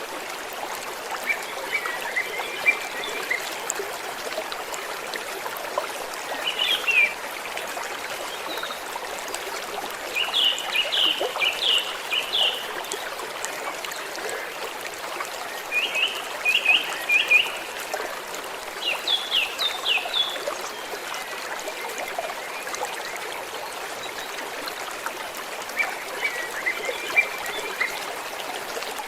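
Stream water trickling and flowing steadily. About six times, a quick run of short, high chirps breaks in over it for a second or two.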